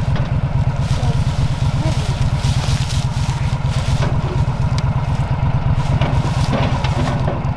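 Small off-road vehicle engine idling steadily close by, with a few light knocks as a deer carcass is loaded onto it.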